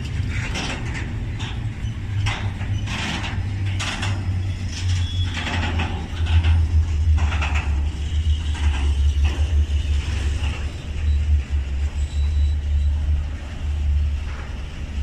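Freight train of loaded tank wagons rolling past close by: a steady low rumble, with repeated short squeaks and knocks from the wagons' running gear, thickest in the first half.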